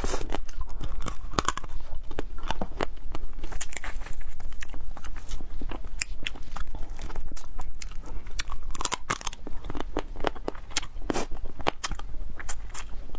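A person biting and chewing pieces of shellfish in chili sauce, with many sharp crunches and cracks throughout.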